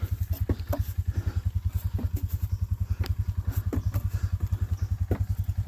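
A small single-cylinder ATV engine idling with an even pulse about twelve times a second. Scattered light clicks and knocks sound over it.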